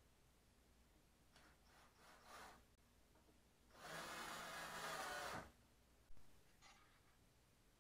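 Cordless drill running for about a second and a half, bit in a wooden rack upright, with faint handling knocks before it and a single click after.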